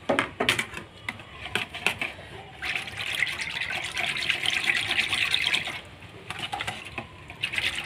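Wire whisk beating yogurt in a plastic bowl: a wet swishing in two stretches, the first from nearly three seconds in to nearly six, the second starting near the end. Near the start come a few light metal clicks.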